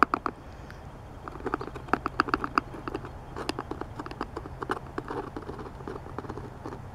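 Irregular clicking and tapping, in quick runs of several a second, as hands handle the plastic shell of a bike seat and press an adhesive tube into the gap under its cover.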